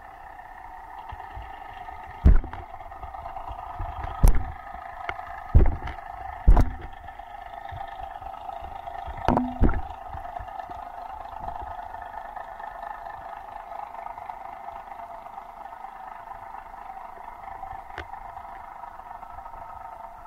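Underwater sound picked up through a camera housing: a steady droning hum with several overtones. Six sharp knocks come between about two and ten seconds in, the last two close together.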